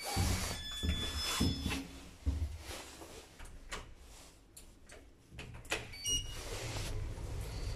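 Lift car's automatic sliding doors closing with low thuds and knocks, with short electronic beeps from the car's button panel. About six seconds in another beep sounds, then a steady low hum builds as the traction lift car starts to move down.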